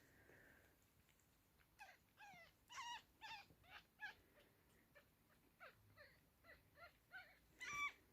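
Six-day-old kittens mewing: a run of short, high calls, each falling in pitch, about two a second, starting about two seconds in, with the loudest call near the end.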